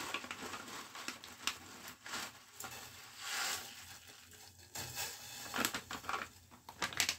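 Plastic noodle packet crinkling and rustling in the hands as the dried noodle cake is taken out, with scattered sharp clicks and crackles, thickest near the end.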